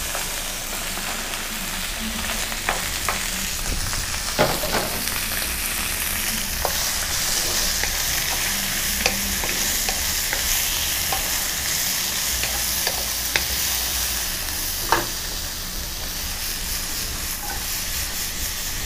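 Stir-fry vegetables sizzling steadily in a hot wok of avocado oil, garlic and ginger as they are tipped in and stirred with a wooden spoon. A few sharp clicks of the spoon knocking against the pan.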